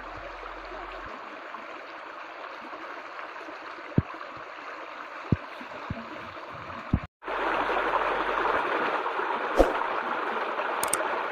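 Shallow stream running over rocks, a steady babbling rush of water with a few sharp knocks. About seven seconds in it cuts to a louder, closer rush of water tumbling over stones.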